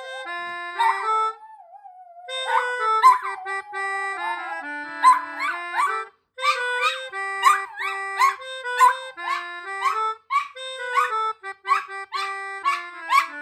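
A free-reed keyboard instrument plays a melody of separate, stepped notes, quicker and more clipped in the second half. A small Maltipoo dog howls along with it in a wavering, sliding pitch that is clearest in the first few seconds.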